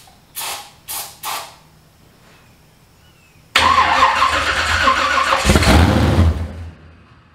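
Three short hisses of an aerosol can sprayed into the carburettor of a 1972 Chevy C10. About three and a half seconds in, the engine turns over on the starter for about three seconds, louder near the end, then stops without settling into an idle. This is a first start attempt after the truck was rewired and had sat for months.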